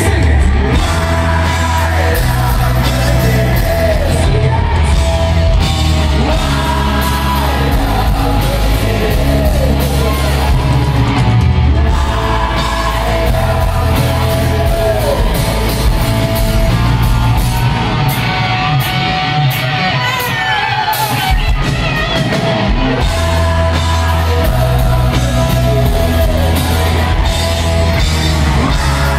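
Live hard rock band playing loud in an arena, with heavy bass and drums, singing and yells, echoing through the hall.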